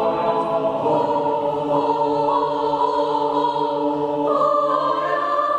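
Mixed choir singing long, sustained chords. The harmony shifts a few times, and the upper voices move higher near the end.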